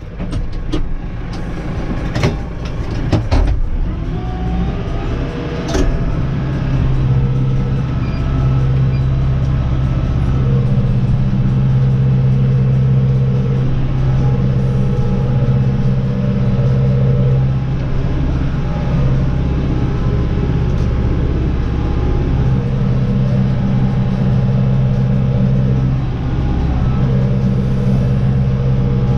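MR70 tractor engine running steadily, with several sharp clicks and knocks in the first six seconds while the tractor is being set up. From about halfway in, the engine drives a STAR mini roll baler.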